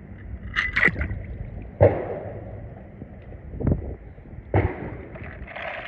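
Swimming-pool water splashing and gurgling around a die-cast toy car as it goes into the pool, with several short, sharp splashes.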